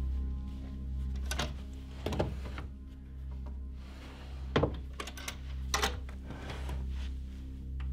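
Low, steady droning film score, with several sharp wooden knocks and clicks as the drawers of a wooden chest of drawers are pulled open and searched.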